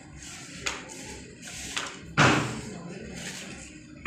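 Wooden hand loom being worked: two light wooden taps, then about two seconds in a loud thud as the beater is pulled against the woven cloth.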